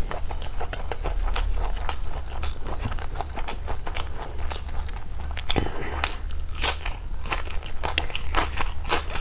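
Close-miked eating: biting and chewing with a rapid, uneven run of sharp crunches and crackles, as of crisp food being bitten.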